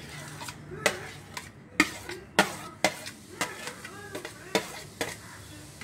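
Metal utensil clinking and scraping against a plate and a steel pot as chopped mango is slid into wet fruit: a series of sharp clinks, roughly one or two a second.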